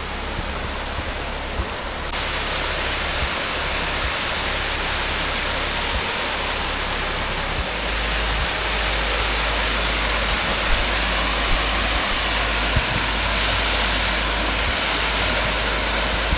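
Steady rushing of a waterfall (Horseshoe Falls): an even hiss of falling water that swells a little about two seconds in.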